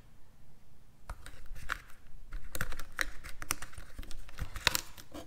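Scattered, irregular clicks and taps from hands working the plastic battery box and wiring on a Suzuki DR-Z400.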